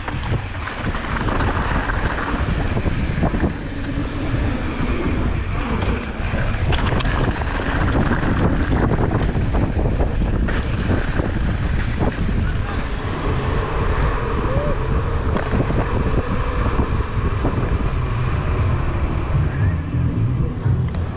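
Wind buffeting the microphone: a loud, steady rushing with a heavy low rumble.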